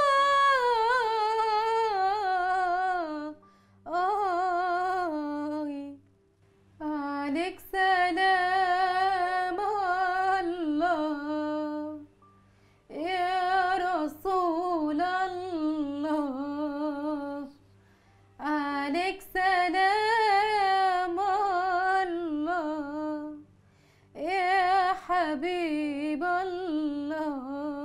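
A woman's unaccompanied voice singing an Arabic devotional ibtihal in long melismatic phrases, the pitch winding and wavering through ornaments. There are six phrases, each a few seconds long, with short breaths between them.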